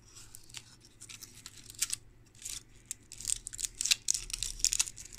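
Close handling noise of a flexible polyimide circuit board turned and pressed in the fingers: irregular small crinkles, scratches and clicks that get busier and louder about halfway through.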